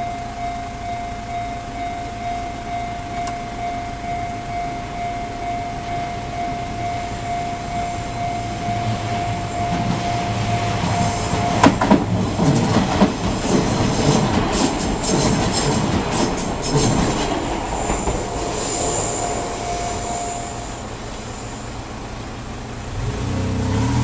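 Japanese level-crossing warning bell ringing steadily in a regular pulse. About halfway through, an Izuhakone Railway Sunzu Line electric train passes through the crossing, its wheels clattering over the rail joints for several seconds. The bell stops near the end, and a car engine revs as traffic moves off.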